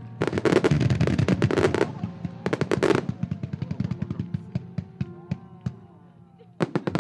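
Fireworks shells bursting and crackling in dense rapid volleys over music played across the display site. The volleys come just after the start, again around two and a half seconds in, and near the end, with scattered single cracks between.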